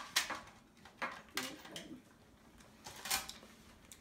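A few light clicks and clinks of small items being handled against a small metal tin on a table, spaced out irregularly.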